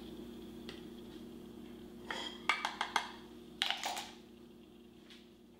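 Light clinks and knocks of kitchen utensils: a measuring spoon against a glass jar and a small saucepan being handled, in a quick cluster about two seconds in and again around four seconds, over a faint steady hum.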